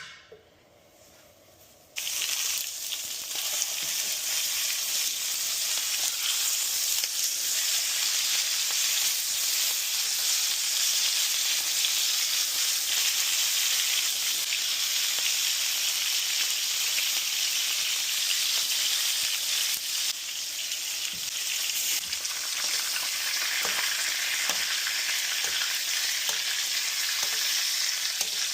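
Steaks sizzling in a hot pan: a loud, steady frying hiss that starts suddenly about two seconds in.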